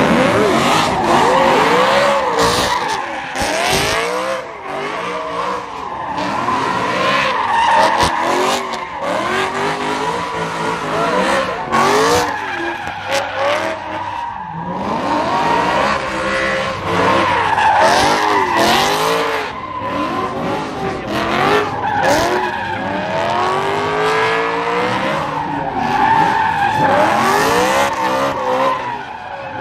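A BMW drifting on a skid pad: its engine revs rise and fall over and over while the tyres squeal continuously, with sharp cracks here and there.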